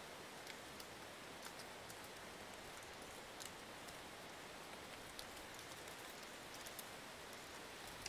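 Faint mountain breeze: a steady soft hiss with scattered light ticks at irregular intervals.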